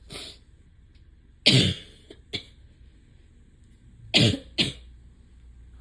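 A person coughing in short, sharp bursts: one loud cough about a second and a half in with two small ones after it, then two coughs close together about four seconds in.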